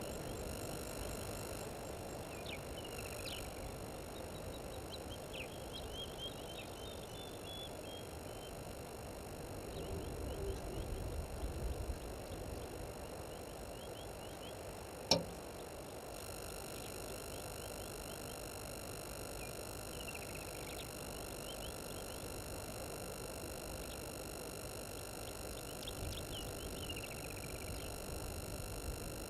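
Faint outdoor ambience with scattered bird calls: short chirps and a quick descending run of notes a few seconds in, more chirps later and near the end. Under them are a low rushing background and steady high-pitched tones, and there is one sharp click about halfway through.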